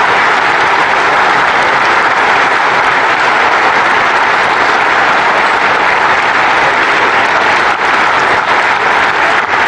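Arena crowd applauding steadily, with single hand claps standing out near the end as the applause begins to thin.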